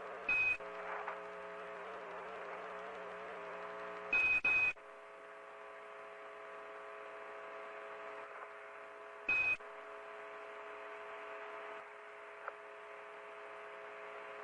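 Radio channel hiss with a steady buzzing hum, broken by four short, high beeps: one near the start, two close together about four seconds in, and one about nine seconds in. They are the kind of beep tones that mark radio transmissions on a space-mission link.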